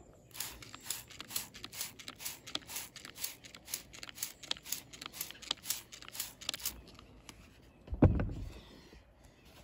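Stiff nylon-bristle hand brush scrubbing wet, dirty car carpet in quick back-and-forth strokes, about four a second, stopping after about seven seconds. One louder thump follows about eight seconds in.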